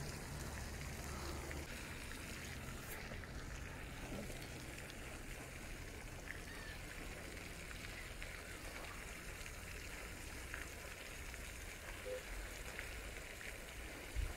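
Steady hiss of splashing water, with a few faint ticks; a low rumble dies away in the first two seconds.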